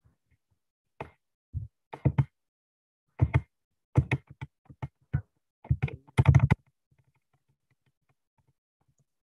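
About a dozen irregular key taps and clicks on a computer keyboard over five seconds, some single and some in quick pairs, as keys are pressed to step through presentation slides.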